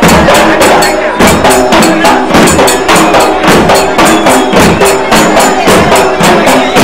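A group of large barrel drums beaten with sticks in a loud, fast, even rhythm, about three to four strokes a second.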